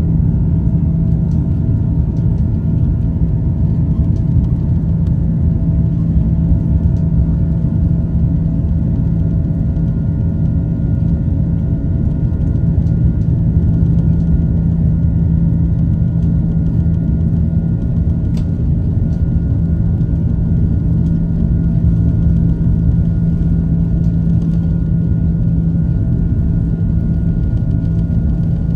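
Airbus A330's Rolls-Royce Trent 700 turbofans at takeoff thrust during the takeoff roll, heard inside the cabin as a loud, steady rumble with a steady low drone.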